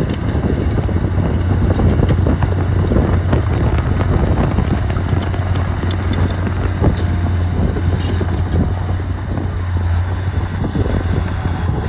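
Diesel engine of heavy earthmoving equipment running steadily under load, with scattered knocks and clanks over it.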